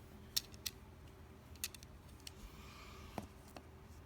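Handling noise: about six light, sharp clicks and taps spread unevenly over a few seconds, over faint room tone.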